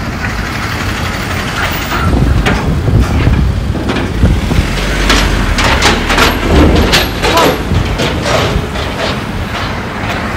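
Road traffic passing close by on a wet street: a large vehicle drives past with a heavy low engine rumble and tyre noise that swell about two seconds in. A run of short hisses comes in the middle, and the rumble eases off toward the end.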